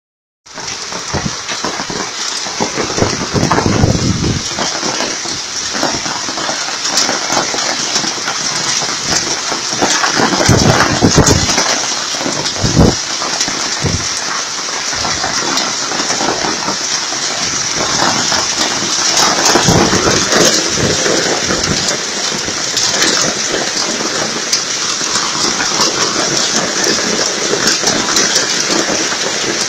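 Heavy rain mixed with hail pelting the ground and nearby surfaces: a dense, steady hiss full of small sharp impacts, with a few louder surges.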